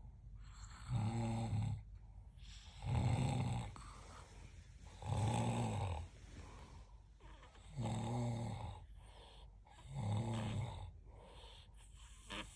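Snoring in a steady rhythm: five loud, rattling snores about every two and a half seconds, each about a second long, with quieter breathing between them.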